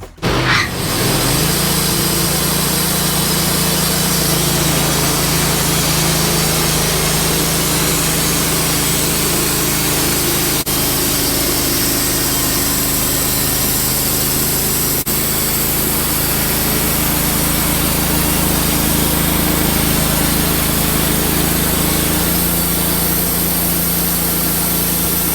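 Wood-Mizer LT15 portable band sawmill running steadily, its engine and band blade sawing through an ash log. The engine's tone shifts slightly near the end.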